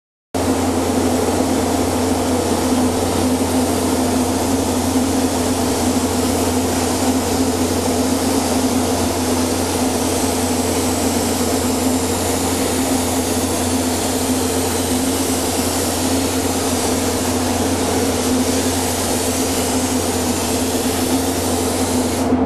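Gravity-feed paint spray gun hissing steadily with compressed air as it lays a coat of pearl mixed into clearcoat, over a steady mechanical hum. The high hiss drops away at the very end.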